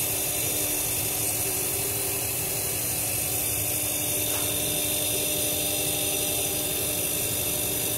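Steady, unbroken running noise of factory machinery, a flat hiss with a few faint steady tones in it.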